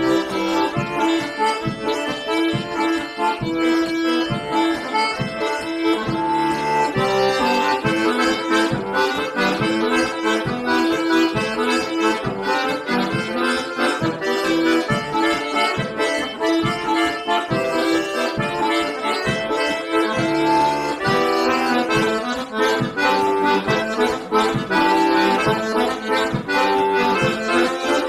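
Closing instrumental music: a steady, lively tune of many quick notes over held chords, with no voice.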